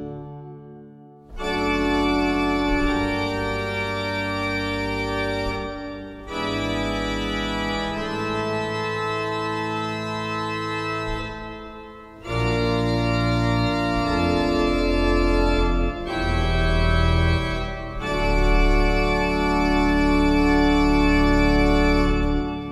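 Heinrich Schiffner pipe organ (1913) playing an improvisation in D minor: full chords held for several seconds each. Short breaks fall between phrases. At the first, just after the start, the sound dies away in the church's echo before the next chord comes in.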